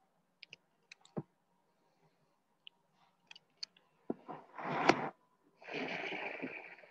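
Scattered faint clicks, then two loud breathy gusts of noise, the first building to a sharp peak about five seconds in and the second a steadier rush just after.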